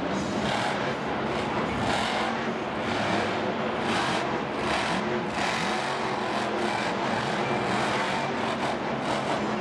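Monster truck's supercharged V8 engine running hard and revving up and down.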